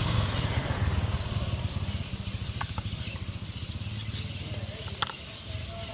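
A motorcycle engine running past on the road and fading as it moves away, with two light clicks about two and a half and five seconds in.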